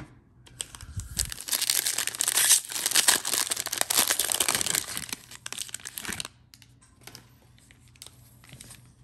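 A 2021 Bowman Baseball jumbo pack's plastic wrapper being torn open and crinkled by hand for about six seconds, then fainter rustling as the stack of cards is handled.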